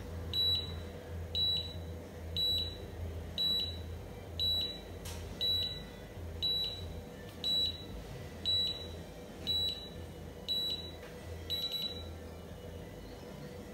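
Cordless automatic hair curler beeping about once a second while it curls a strand, a timed countdown. A quicker cluster of beeps near the end signals that the curl is done and the button can be released. A low steady hum runs underneath.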